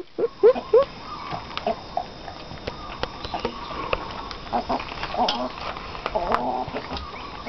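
A barred hen and a dog eating together from a metal pan of kibble: sharp clicks of pecking and chewing on the dry food, with the hen's short rising calls about half a second in and a run of clucking about five seconds in.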